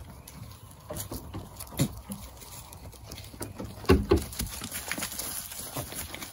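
Nigerian Dwarf goat kids' hooves tapping and clattering on rocks and ground as they jump on and off. The taps come irregularly, with louder thumps about two seconds in and again around four seconds in.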